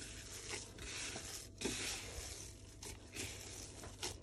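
A hand in a plastic glove squeezing and kneading a dense mix of chocolate cake and cocoa buttercream in a bowl: irregular bursts of glove crinkling and soft squishing, with a few small knocks against the bowl.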